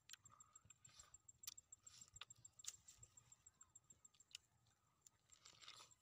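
Near silence with faint sounds of fresh pineapple being eaten by hand: a few soft clicks and crunches of biting and chewing, and a short rustle near the end.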